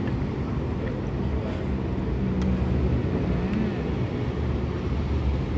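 Steady low rumble of street traffic and engines, with a single faint click about two and a half seconds in.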